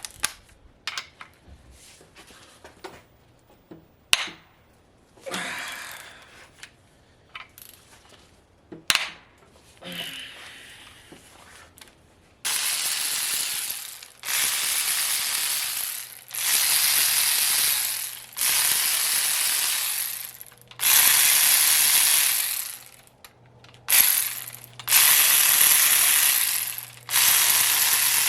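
Scattered clicks and clinks of a socket and tools on the engine block. Then, from about halfway, a ratchet wrench turning out the main bearing cap bolts of a GM LS 5.3 V8 block: a long spell of ratcheting about every two seconds.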